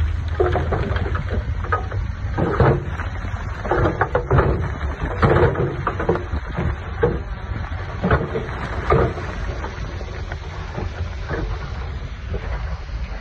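Heavy construction machinery: a diesel engine running low and steady, with irregular clanks and clattering knocks, like stone and dirt being moved.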